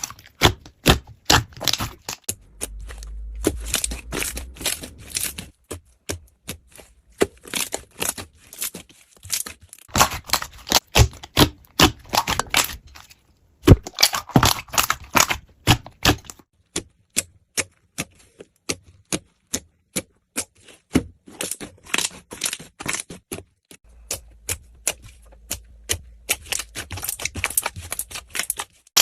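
Slime being squished and played with, giving irregular runs of quick sticky clicks and crackling pops, broken by a few brief pauses.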